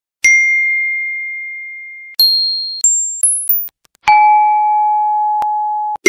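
iPhone text-message notification chime and edited variants of it. One ding rings out for about two seconds. It is followed by a quick run of four short chimes, each higher than the last, then a lower chime that rings on near the end.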